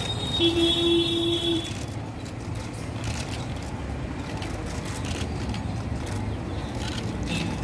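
Steady road-traffic rumble, with a vehicle horn sounding once for about a second near the start.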